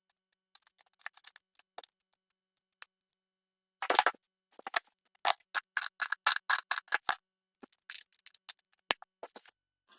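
Light clicks and knocks of hand tool work while setting a toilet. A louder scrape-and-knock comes about four seconds in, then a quick run of ratchet-like ticks, about five a second, for a couple of seconds.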